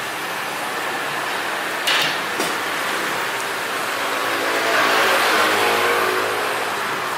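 Street traffic noise: a motor vehicle passes, its engine swelling and fading about four to six seconds in, with two sharp clicks about two seconds in.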